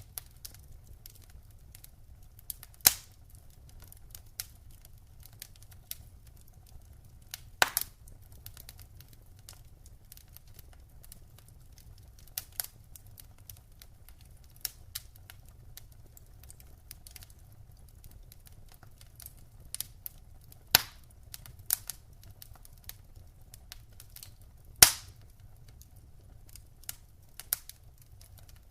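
Wood fire crackling in a fireplace: irregular small ticks and snaps, with a few much louder sharp pops, about three seconds in, near eight seconds, and twice in the last third, over a faint steady low rumble.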